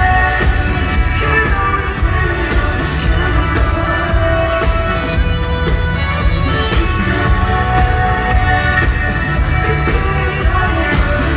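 Live band playing an electronic pop song, with a male voice singing over electric guitar, drums and synths on a steady beat.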